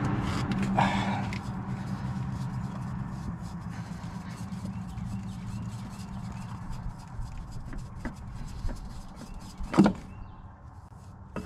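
International 4900 truck's diesel engine being cranked over by its newly fitted starter, with a steady hum that is loudest at first and fades gradually over several seconds. A sharp click near the end.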